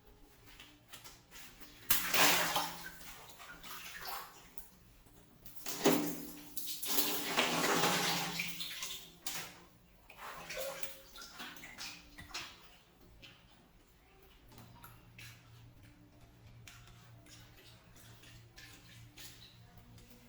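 Water balloons bursting twice, about two and six seconds in, each time followed by water splashing out; the second splash runs longer. Small scattered clicks are heard between them.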